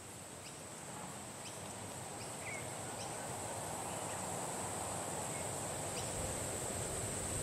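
Nature ambience of a steady high insect drone with a few short bird chirps scattered over it, slowly growing louder.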